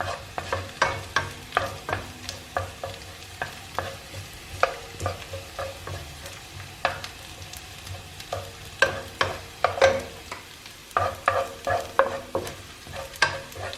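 Minced garlic sizzling in olive oil in a pan while a utensil stirs it, knocking and scraping against the pan several times a second in uneven strokes, some hits ringing briefly.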